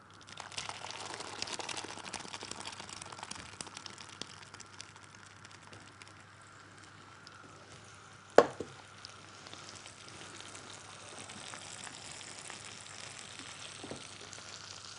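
Food sizzling in a frying pan on a gas hob, a steady fine crackle that is louder over the first few seconds. A single sharp knock about eight seconds in.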